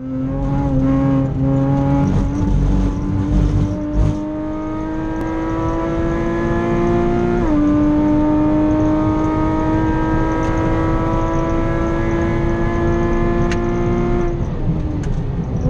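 Porsche 987.2 Cayman R's 3.4-litre flat-six, breathing through Soul competition headers and a valved exhaust, heard from inside the cabin under hard acceleration on track. Its pitch climbs, drops sharply at an upshift about seven and a half seconds in, then climbs steadily through the next gear before falling away near the end.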